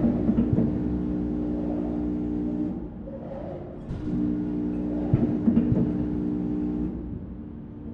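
Vertical packaging machine running on curtain buttons. Its feed hums steadily in cycles, stopping for about a second twice. Sharp clacks come about half a second in and again about five seconds in.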